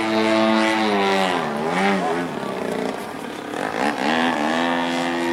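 Desert Aircraft DA-120 twin-cylinder two-stroke gasoline engine of a giant-scale RC Extra 300SHP in flight. It runs steadily, then about a second in the pitch swoops down and back up. It dips again and rises near four seconds before settling steady, as the throttle changes through aerobatic maneuvers.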